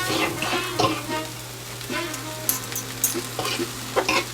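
Chicken and vegetables sizzling in an oiled pan as they are stir-fried, with scattered scrapes and taps of the stirring utensil against the pan.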